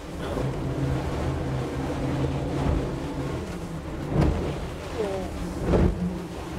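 Twin outboard engines of a 30-foot catamaran running steadily under way through rough seas, with wind and rushing water. Two louder thumps about four and six seconds in as the hull meets waves.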